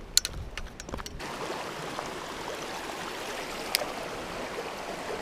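A small creek's water flowing steadily. It comes in about a second in, after a few sharp clicks, and there is one short tick later on.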